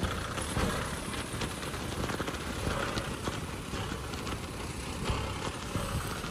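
Kubota M6040SU tractor's four-cylinder diesel engine running steadily under load as it pushes soil with its front dozer blade.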